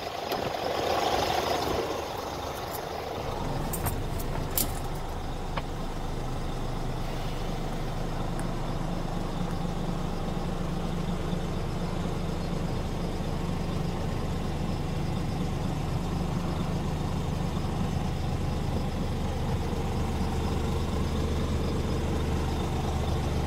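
Scania G400 truck's six-cylinder diesel engine idling steadily, heard from inside the cab as a low, even hum. A few sharp clicks come in the first five seconds.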